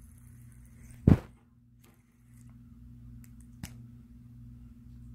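A single loud, short thump about a second in, then a couple of faint clicks, over a steady low hum.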